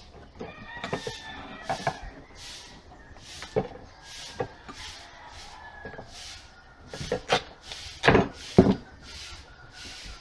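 Hands working duct tape and cardboard on a wooden workbench: a string of short scrapes, rips and knocks, the two loudest about eight seconds in.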